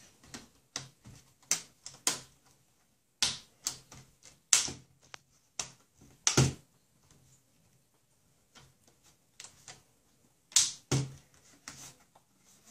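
HP Pavilion 17-e049wm laptop's plastic screen bezel being pressed into place by hand, its clips snapping in with a run of sharp, irregular clicks and snaps, with a short pause about halfway through.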